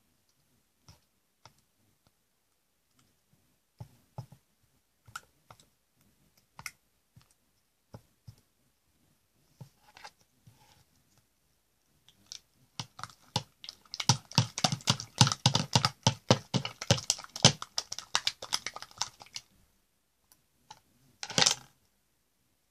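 Clicky slime being squeezed and worked by hand in a plastic tub, trapped air popping as soft clicks: scattered clicks at first, then a dense run of rapid clicking lasting about five seconds, and one short burst near the end.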